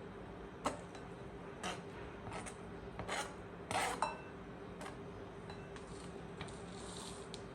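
Kitchen dishes and utensils handled: a few short clinks and knocks, with a longer scrape about four seconds in, over a faint steady hum.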